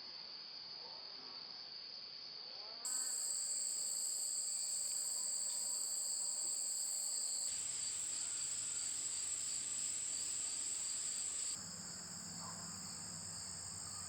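Crickets trilling steadily in a high, continuous chorus at two pitches. The chorus gets suddenly louder about three seconds in and drops back near the end.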